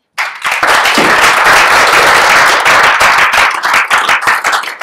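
Audience applauding: clapping starts suddenly, stays dense for about three seconds, then thins to scattered separate claps near the end.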